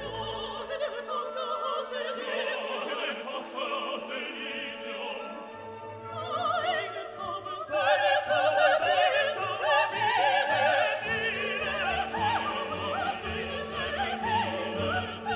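Operatic classical music: a singer with a strong, wide vibrato over an orchestral accompaniment, swelling louder about halfway through.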